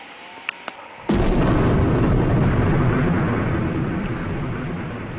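A sudden loud explosion about a second in, followed by a long deep rumble that slowly dies away. A few light clicks come just before the blast.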